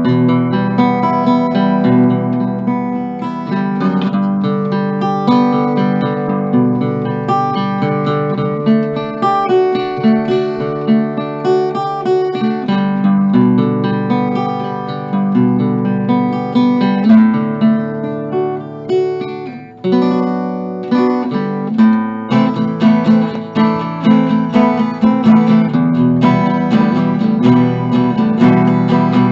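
A 1951 Epiphone Triumph Regent cutaway archtop guitar played acoustically, unamplified, with chords and single notes, with a short break in the playing about 20 seconds in.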